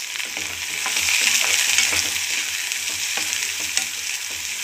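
Finely chopped onions and curry leaves frying in hot sesame oil in a kadai with a steady sizzle, stirred with a ladle that taps and scrapes the pan now and then.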